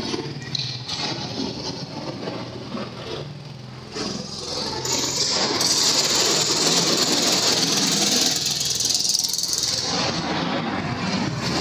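Several go-kart engines running in a pit lane, with a low, steady engine hum underneath. About four seconds in a loud, hissing, rattling rise in engine noise comes in and eases off again near the end.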